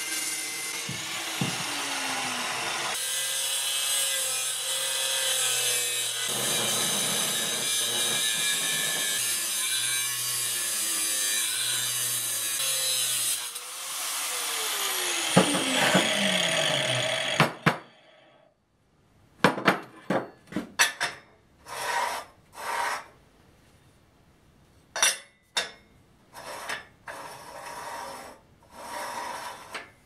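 Abrasive cut-off chop saw cutting steel, its motor and wheel running steadily, then spinning down with a falling whine after about 15 seconds. After that comes a series of about a dozen short, separate scraping strokes on the cut steel tube.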